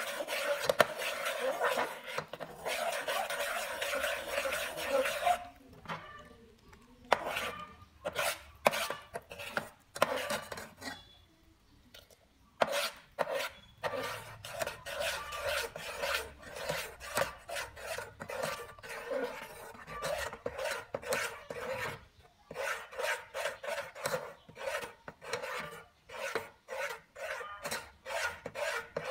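Metal spoon scraping round the bottom and sides of an aluminium pot while stirring thick, boiling-down energy-drink syrup. It is one continuous scrape for the first five seconds or so, then separate strokes, then quick back-and-forth strokes, with a short pause about two-thirds of the way through.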